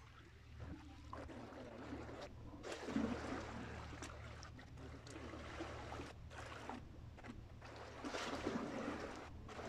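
Sea waves washing at the water's edge, mixed with wind rumbling on the microphone, with two louder surges: about three seconds in and near the end.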